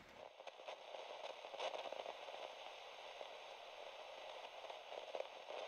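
Faint crackling hiss with scattered irregular clicks from a model steam train running on its layout track.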